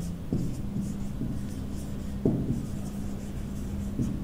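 Marker pen writing on a whiteboard: short scratchy strokes, with a few soft knocks as the pen meets the board.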